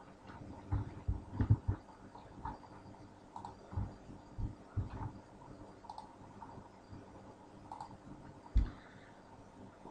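Faint, irregular clicks and soft low thumps of a computer mouse and keyboard being worked.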